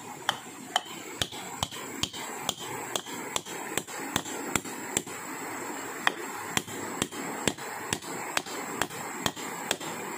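Repeated blows of a hand tool striking wood, about two a second and evenly paced, with a short pause around the middle, over a steady background hiss.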